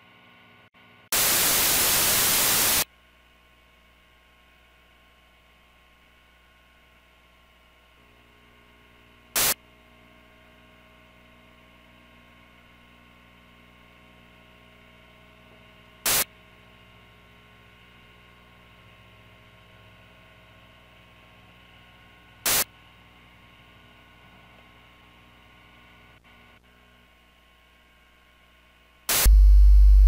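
Television static: a loud burst of white-noise hiss lasting under two seconds, then a faint hum with several steady tones, broken by three brief static crackles about six to seven seconds apart. A loud low-pitched tone cuts in about a second before the end.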